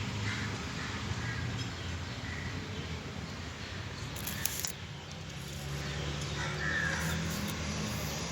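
A bird calling a few times over a steady low hum.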